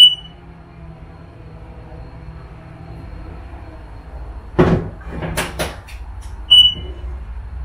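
Hansshow powered frunk struts on a Tesla Model Y closing the frunk lid by motor, a steady low hum for about four seconds. The lid then thumps shut and the latch clicks a few times, and a short high beep follows about two seconds later.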